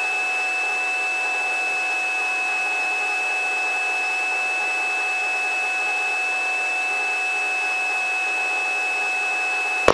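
Helicopter in cruise flight heard through the headset intercom: a steady hiss of cabin noise with a high-pitched whine held on one note, and no deep rumble.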